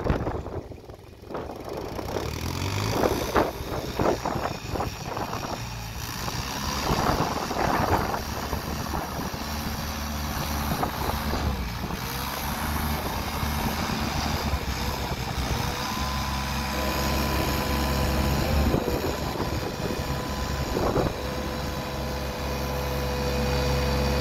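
Yanmar diesel engine of a Thwaites Mach 201 high-tip dumper running while the skip is raised, tipped and lowered. The engine picks up after a brief quiet spell at the start, and a steady high whine joins it about two-thirds of the way through.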